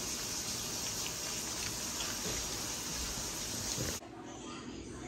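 Water running steadily from a tap, a rushing hiss that stops abruptly about four seconds in.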